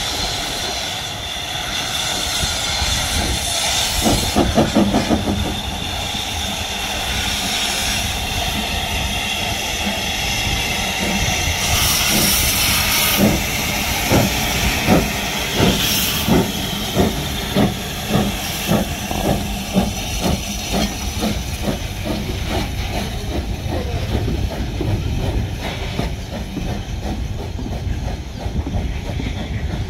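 Narrow-gauge steam locomotive No. 190 Lyd pulling away with its train: steam hissing around the cylinders at first, then a run of regular beats that get faster as the locomotive and its carriages go past.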